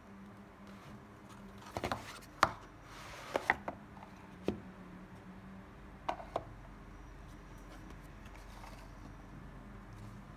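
Paper drawing cards being handled: a cluster of sharp taps and clicks as sheets are picked up and set down, with a brief paper rustle about three seconds in, and two more taps a little after six seconds. A faint steady hum lies underneath.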